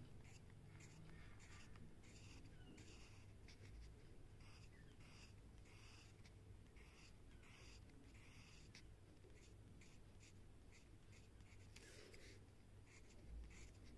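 Pencil scratching faintly on paper in many quick, short strokes, shading in a drawn design.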